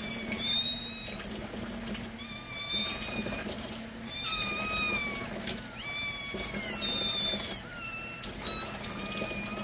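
A litter of ginger kittens meowing over and over with thin, high-pitched cries, the calls overlapping and coming about once a second: hungry kittens begging for their milk.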